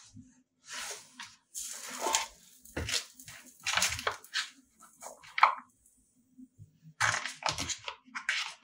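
Kitchen handling noises while bao buns are filled: irregular bursts of rustling and crinkling with a few light knocks of food and utensils being handled. They pause briefly about six seconds in, then start again.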